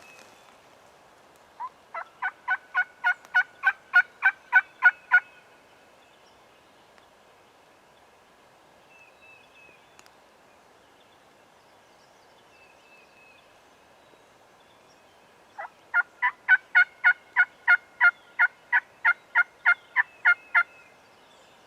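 Turkey yelping: two long runs of evenly spaced yelps, about four a second, the first building steadily in loudness over about three and a half seconds, the second starting about ten seconds later and lasting about five seconds.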